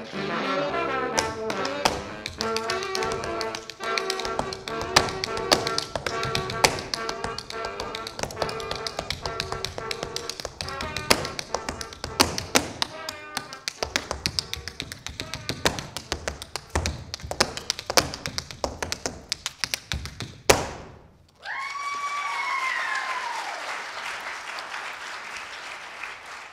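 Tap shoes striking a stage floor in fast rhythmic runs over recorded brass-led music, ending with one loud final stamp about twenty seconds in. Then an audience applauds, with a couple of whistles, and the applause fades away.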